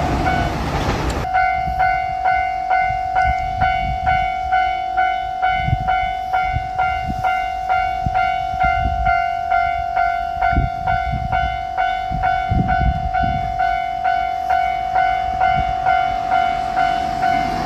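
Japanese level-crossing warning bell ringing on and on, an even clanging tone struck a little under twice a second. The rushing noise of a passing diesel train cuts off about a second in.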